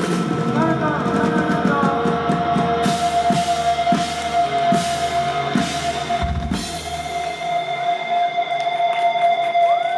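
Live rock band playing: drum kit with repeated drum hits and several cymbal crashes over steady held tones. The low bass drops out about three quarters of the way through, leaving the sustained higher tones ringing.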